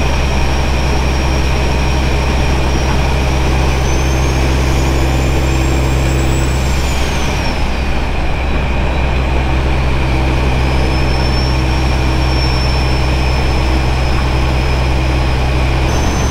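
Straight-piped Caterpillar 3406 inline-six diesel in a Kenworth W900 pulling down the highway, heard from inside the cab: a steady deep engine note with a high turbo whistle. About seven seconds in, the whistle and engine note drop for a few seconds during a gear change, then build again.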